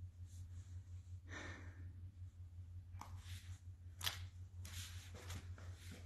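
Faint breaths and small rustles from a person close to a phone microphone, a few soft swishes and a small click about four seconds in, over a steady low hum.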